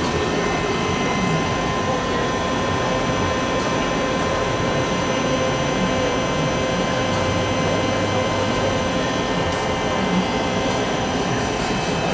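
Micron MPC-600II CNC centerless grinder running under power: a steady whirring hum with several constant tones and no change in speed.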